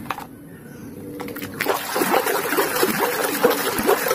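Water splashing and sloshing as a hand scrubs a muddy plastic toy mask in water, starting about one and a half seconds in and getting louder. Before that, a few light knocks of plastic toys in a plastic basket.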